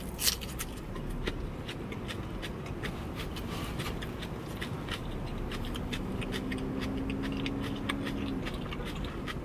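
Close-up chewing of a mouthful of crisp salad with croutons: irregular small crunches and wet mouth clicks. A faint low steady hum joins for about three seconds past the middle.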